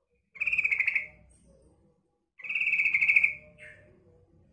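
Female yellow-vented bulbul (trucukan) giving its call to attract a male: two rapid trilled calls about a second long each, roughly two seconds apart, the second followed by a short note.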